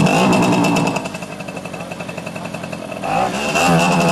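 Mid-1960s Crescent moped's two-speed Sachs two-stroke engine running and being revved. It eases off about a second in and is revved up again about three seconds in.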